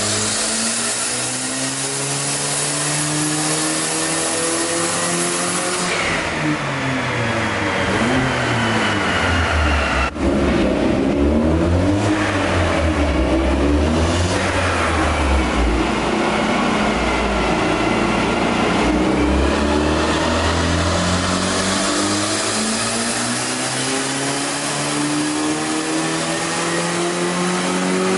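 Hyundai Genesis Coupe 2.0T's turbocharged four-cylinder engine, running a larger 20G turbo, under load on a chassis dyno. Engine speed falls over the first several seconds and drops out briefly about ten seconds in. It then climbs steadily through a long pull of more than ten seconds, running to the end.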